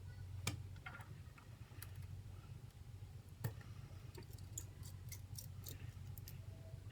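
Small screwdriver and tweezers clicking and tapping against an iPhone's metal brackets and tiny screws as the screws are driven in: scattered light clicks, two sharper ones, and a quick run of clicks near the end, over a steady low hum.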